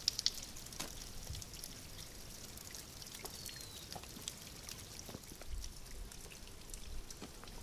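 Faint trickling and dripping of water down a mossy rock face from a waterfall that is nearly dry, with scattered small drips and a brief high falling whistle about three seconds in.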